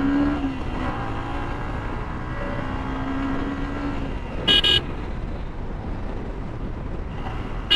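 Steady engine and road noise while riding a motorcycle in traffic, with an engine note that rises and falls. A short high horn beep sounds about four and a half seconds in, and another horn starts at the very end.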